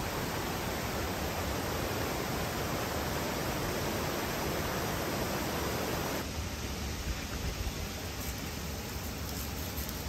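Mountain stream rushing over rocks and small cascades, a steady hiss. About six seconds in it cuts off sharply to a fainter, more distant rush.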